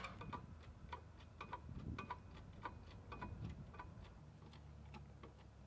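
Faint, light mechanical clicks at a fairly even pace, about three or four a second, from hand-worked boat-lifting gear being cranked and pumped.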